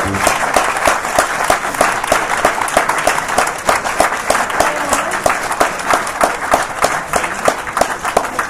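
Concert audience applauding, with one pair of hands clapping steadily close to the recorder over the hall's general clapping; it eases off a little towards the end.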